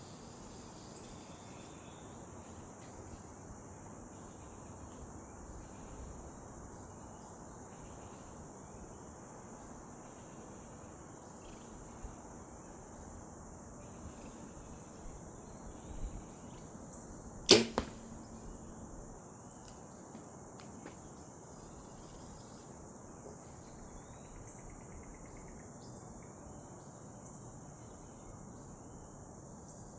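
An archery bow shooting once, a single sharp snap about halfway through, over a steady high chirring of crickets.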